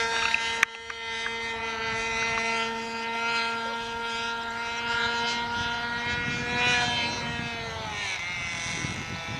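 ASP .52 model glow engine of a radio-controlled plane running in flight, a steady droning note whose pitch falls about eight seconds in. A sharp click sounds just under a second in. The flyers think the engine wants tuning on its pipe before it would go well.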